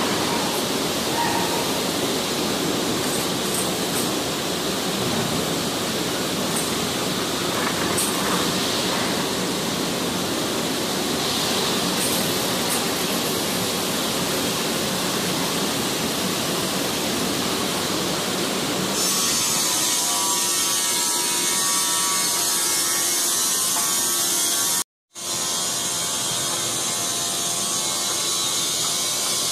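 Steady mechanical noise of factory machinery running. About two-thirds of the way through it changes to a hissier, more even noise, and near the end it cuts out completely for a moment.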